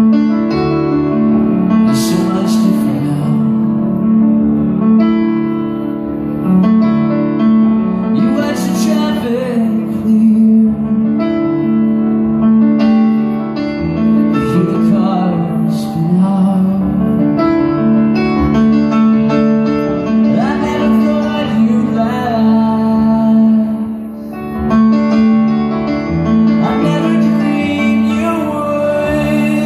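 Piano-led rock song played live on a grand piano with band backing, heard from within the audience. Sharp crashing accents cut through about two, nine and sixteen seconds in.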